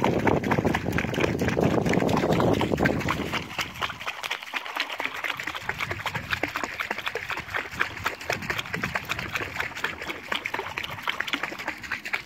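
A hooked barbel (sharptooth catfish) thrashing and splashing at the water's surface right beside the boat. The splashing is heaviest for the first three seconds or so, then eases to a lighter, continual patter of splashes and drips.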